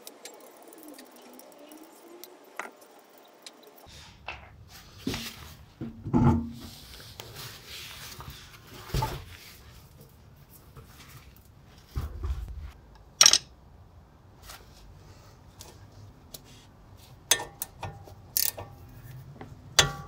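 Scattered metallic clinks and knocks from lug nuts, the wheel and a socket wrench being handled while taking a car wheel off to reach the brake caliper. The loudest knocks fall about six seconds in and again about thirteen seconds in.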